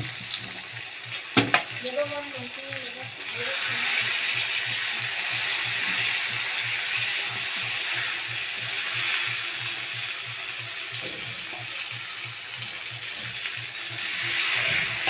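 Pieces of meat frying in a pan and being stirred with a wooden spatula. There is a sharp knock about a second and a half in, then the sizzle turns loud about three seconds in and holds, swelling again near the end.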